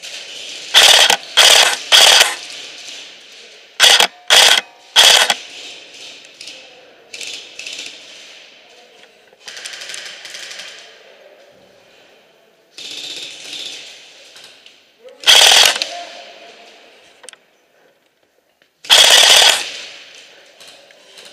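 Airsoft electric rifles firing short full-auto bursts close by: three quick bursts in the first two seconds, three more around four to five seconds in, another about fifteen seconds in, and a slightly longer burst near the end. Lower indistinct clatter and voices lie between the bursts.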